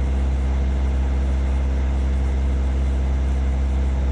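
Hyundai Robex 55-7A mini excavator's diesel engine running steadily with a deep, even hum and no change in engine speed.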